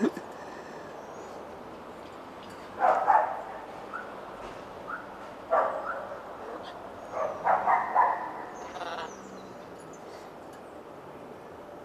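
Blue-and-yellow macaws calling in three short bouts: one about three seconds in, one near the middle, and a longer run of several calls around eight seconds.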